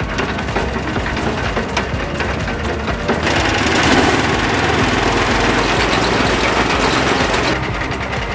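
Petrol-engined concrete mixer with a Briggs & Stratton 420cc single-cylinder engine running steadily. A louder rushing noise joins about three seconds in and stops about four seconds later.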